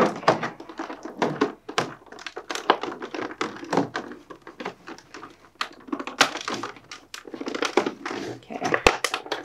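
Stiff clear plastic packaging tray crackling, clicking and thunking irregularly as hands flex and press it, with a sharper knock near the end.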